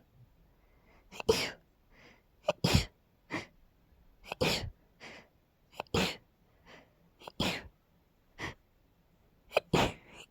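A woman sneezing in a rapid fit, about six sharp sneezes roughly a second and a half apart, with short breaths and smaller sounds between them. It is allergic sneezing, which she puts down to pollen.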